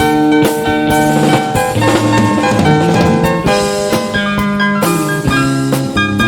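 Country band playing an instrumental break with no singing: drum kit keeping a steady beat under bass and sustained melody notes from guitars, pedal steel guitar and piano.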